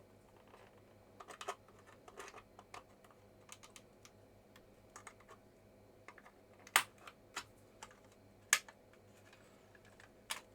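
Light plastic clicks and ticks as the old, brittle plastic case of a Commodore GL-976M calculator is worked open by hand, with a few louder sharp clicks in the second half as the case parts.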